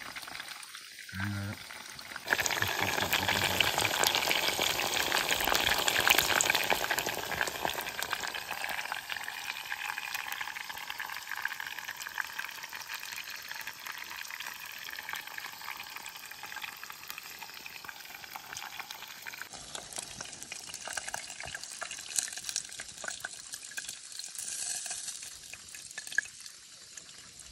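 Food sizzling in a pan over a small wood fire: a dense, crackling sizzle that starts suddenly about two seconds in, is loudest for the next few seconds, then carries on more softly.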